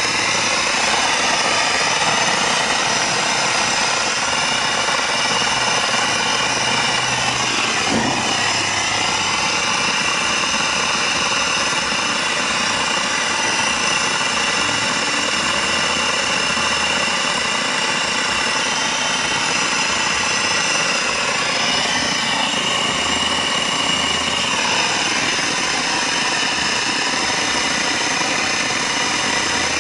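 Pressure washer running steadily, its wand spraying water against a lawn mower's engine and deck: a steady hiss of spray with high, even tones from the machine.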